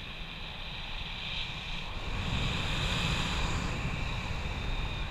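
Wind rushing over the camera's microphone during paragliding flight: a steady rumbling hiss that swells for a second or two about two seconds in.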